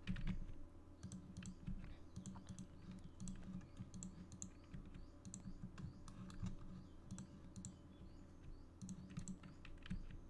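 Faint, irregular clicking of a computer mouse and keyboard: mouse-button clicks, scroll-wheel turns and key presses, several a second.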